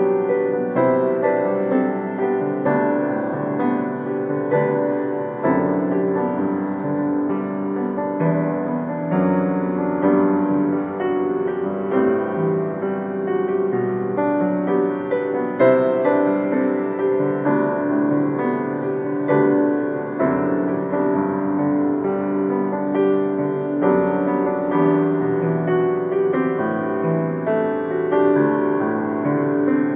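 Upright piano played with both hands: continuous chords with a melody line over them.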